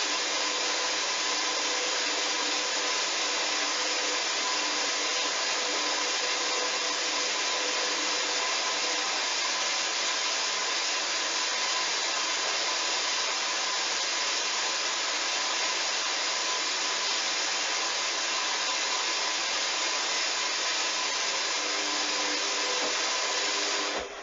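Hoover washing machine taking in water: a steady, loud rush of water through the inlet during the duvet wash, cutting off suddenly near the end as the fill stops.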